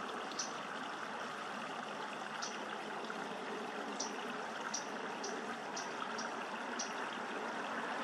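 Steady rush of flowing water, with repeated short, high chirps from a small bird scattered through it.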